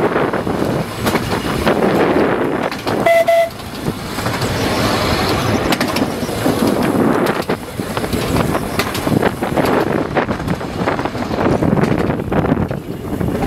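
Narrow-gauge electric tram running along the track, its rumble and rattle mixed with wind buffeting the microphone. About three seconds in, the tram's horn gives one short toot.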